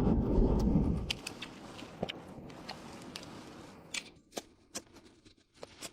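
Scattered faint clicks and taps of tableware and eating at a dining table, after a low rumble that fades out in the first second.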